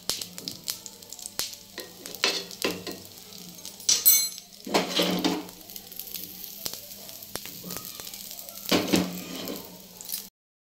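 Chana dal dosa batter sizzling and crackling on a hot tawa as it crisps, with steady hiss and many sharp little pops. Two louder swells of hiss come about five seconds in and near the end, and the sound cuts off suddenly just before the end.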